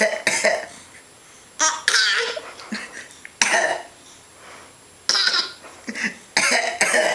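A man and a baby coughing in turn, short coughs traded back and forth as the baby copies him, with laughter between them.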